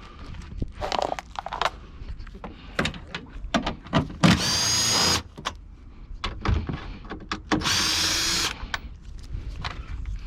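A power drill runs in two bursts of about a second each, one about four seconds in and one near eight seconds in, driving out the 10 mm screws that hold the cowl and battery tray. Clicks and knocks of parts being handled come between the bursts.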